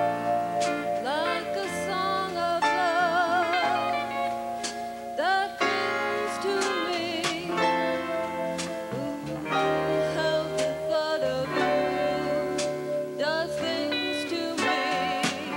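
Live show-band music: a slow melody over sustained chords, its lead line sliding up into notes several times and held with a wide vibrato.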